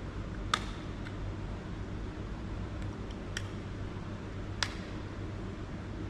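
Sharp plastic clicks and taps as the back cover of a small RC transmitter is fitted and screwed on, four short clicks with the loudest about half a second in and another near the end, over a steady low hum.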